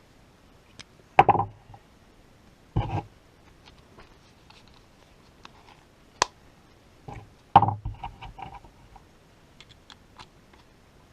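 Handling noises from a small cordless rotary tool and its accessories while the motor is off: a few short knocks and clatters, loudest about a second in, near three seconds and about seven and a half seconds in, with light clicks between them.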